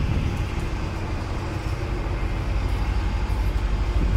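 Steady low machinery rumble with a faint constant hum above it.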